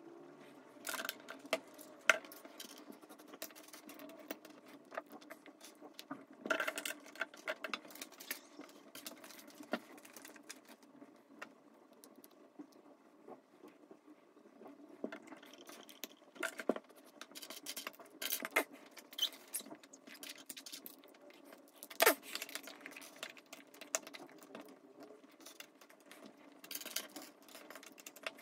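Plastic Lego bricks clicking and rattling as they are picked from a pile on a wooden table and pressed together, in irregular clusters of small clicks. There are sharper single snaps about two seconds in and again around twenty-two seconds, over a faint steady room hum.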